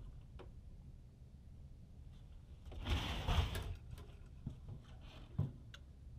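A short rush of splashing water about three seconds in, over a low steady rumble, with a few light knocks on the boat.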